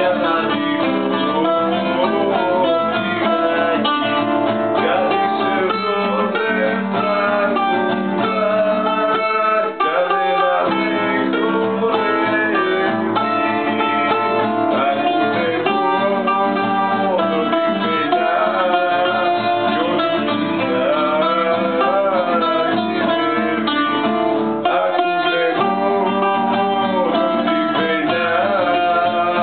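Greek folk music on plucked strings: a baglamadaki, guitar and bouzouki playing together without a break.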